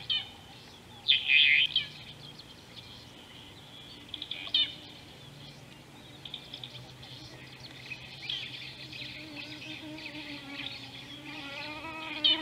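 Birds calling and chirping, with a loud burst of calls about a second in and a shorter one a few seconds later. In the second half a fly's wavering buzz grows close to the microphone.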